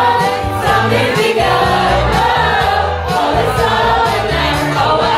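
Music: a song with singing over a repeating bass line.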